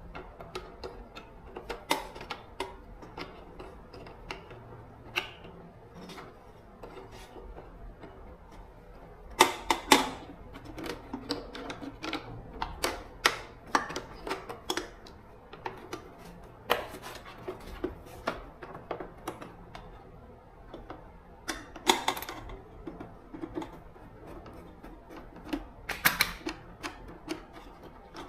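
Irregular light clicks and taps of hand tools and small metal parts being handled, with a few louder clusters of knocks about ten seconds in, again after about seventeen and twenty-two seconds, and near the end.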